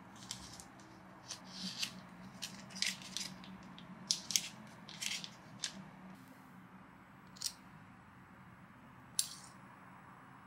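Parchment paper crinkling and rustling in short, irregular crackles as hands press and crimp pastry dough on it, over a faint low hum.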